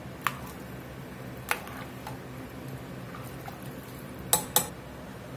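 Stirring a pot of chili sauce in an enamelled Dutch oven, with sharp clinks of the spoon against the pot: one near the start, another about a second and a half in, and two close together near the end. A faint steady hum runs underneath.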